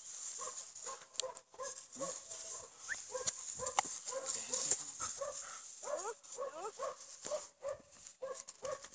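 Young German shepherd-type dog whining in short, repeated high yelps, about two a second, some sliding up and down in pitch, as it lunges on its lead, excited for a ball.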